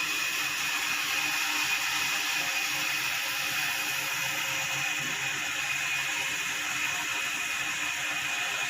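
Sawmill saw machinery running steadily, a constant high whine over an even hiss.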